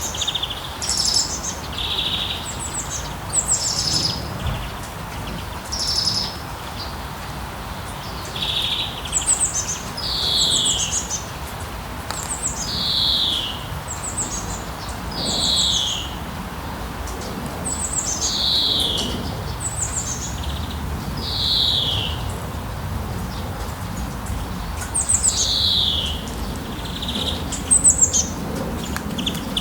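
A songbird singing repeated short phrases, high rapid trills and quick falling whistled notes, one every second or two, over a steady hiss of rain.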